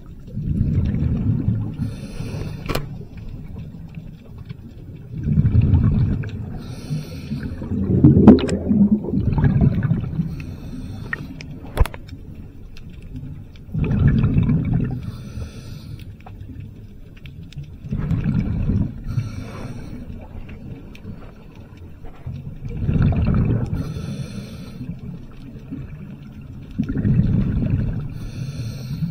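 Scuba diver breathing underwater through a regulator: a rush of exhaled bubbles rumbles about every four to five seconds, around seven breaths in all, with quieter water noise between them.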